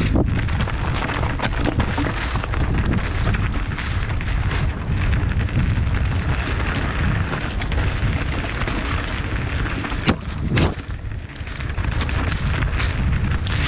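Mountain bike rolling fast down a dirt singletrack: a steady rumble of wind buffeting the microphone mixed with tyre and trail noise, and two sharp knocks about ten seconds in as the bike hits bumps.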